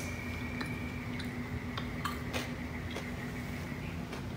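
Faint chewing of a mouthful of crunchy toasted burger slider: soft, irregular clicks over a steady low hum.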